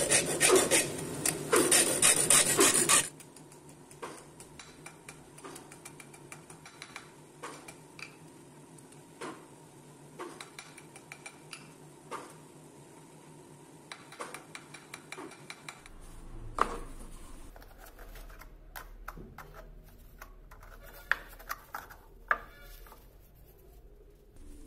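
Rapid back-and-forth rasping of a hand-held abrasive strip worked against the metal frame of an old oil lamp, stopping suddenly about three seconds in. After that come scattered light metal clicks and taps from small lamp parts being handled.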